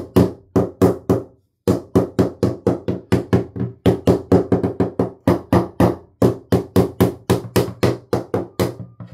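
Small hammer tapping rapidly on the inner laminate of a balsa-cored GRP yacht hull, about four knocks a second with a short pause about a second and a half in. It is a tap test that finds the laminate delaminated there, the skin parted from the core.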